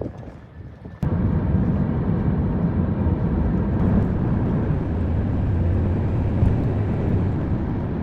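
A steady low rumble that starts suddenly about a second in and holds evenly.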